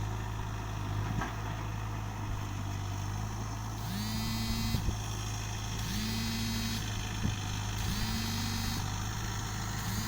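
Backhoe loader's diesel engine idling steadily. From about four seconds in it revs up four times, about two seconds apart, each rise held for under a second before dropping back.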